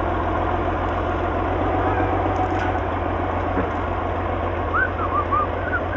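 International 460 tractor's six-cylinder engine idling steadily, with a few short high chirps near the end.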